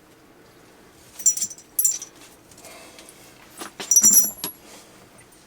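Small metal hardware, bolts and washers, clinking and rattling as it is picked through by hand, with short, high, bright rings. There are a few clinks in the first two seconds and a louder cluster a little before four seconds in.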